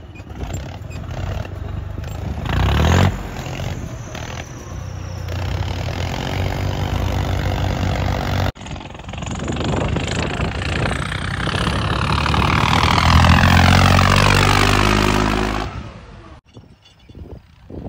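Farmtrac tractor's diesel engine being revved hard as it drives, its note rising and falling. The sound breaks off abruptly about halfway through. It then builds to its loudest, with the pitch climbing, and cuts off suddenly near the end.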